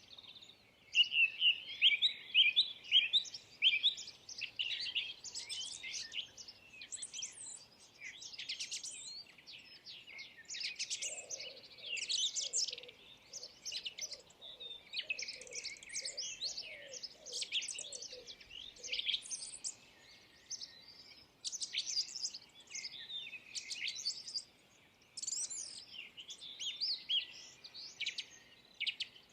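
Several small birds chirping and singing together, a dense stream of short high notes and trills, loudest in the first few seconds. From about eleven seconds in, a lower, fainter run of repeated notes sounds beneath them for several seconds.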